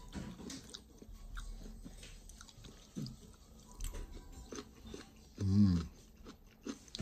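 A person chewing mouthfuls of rice, Chinese sausage and stir-fried vegetables close to the microphone, with scattered light clicks from a metal fork on a ceramic plate.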